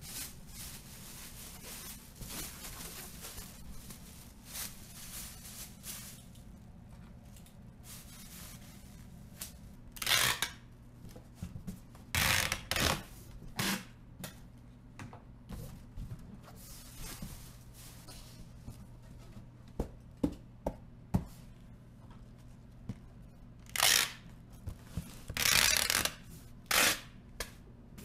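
Plastic packing bag rustling over a foam kids' sofa, then a cardboard shipping box being handled and closed, with several short, loud tearing sounds, once about ten seconds in, twice around twelve to thirteen seconds and in a cluster near the end.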